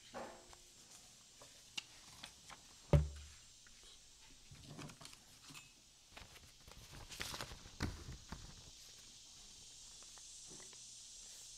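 Quiet handling noise close to a lectern microphone: scattered soft rustles and clicks, with one heavier thump about three seconds in and a longer rustle around seven to eight seconds.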